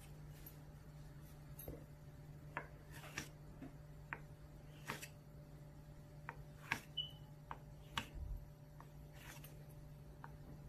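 A small kitchen knife cuts diagonal slits into rolled bread dough on a marble pastry board, giving about a dozen faint, short ticks as the blade meets the board. A steady low hum runs underneath.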